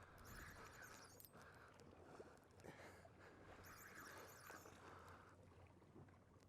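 Near silence: a faint hiss with a few small ticks.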